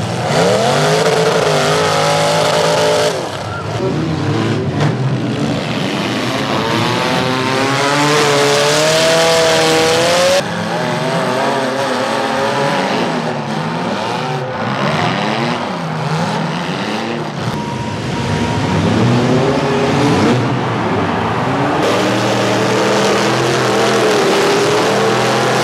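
Several demolition derby car engines revving and running at once, their pitch rising and falling repeatedly. The sound changes abruptly three times as it jumps to another heat.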